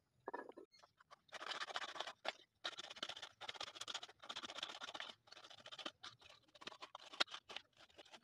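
A hand tool rubbing over the hollowed inside of a small carved wooden piece in repeated strokes of about a second each, with shorter scrapes and a few sharp clicks near the end.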